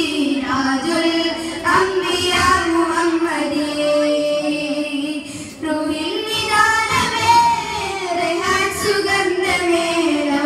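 Boys singing a devotional song into handheld microphones, their voices amplified, with the melody gliding between long held notes.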